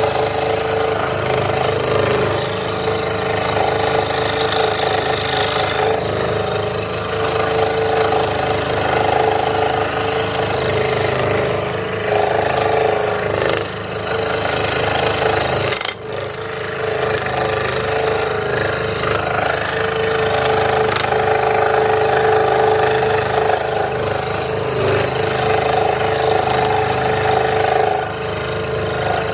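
Electric scroll saw running steadily, its reciprocating blade cutting a thin wooden board along a curved line. The sound dips briefly a few times, once with a short click about halfway through.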